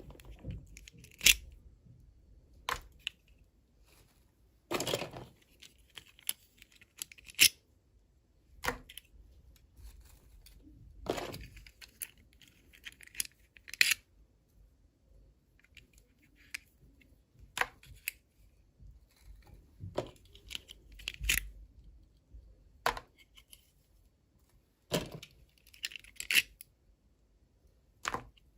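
Toy packaging being handled and torn open by hand, in short irregular tearing and rustling strokes mixed with sharp clicks a second or a few seconds apart.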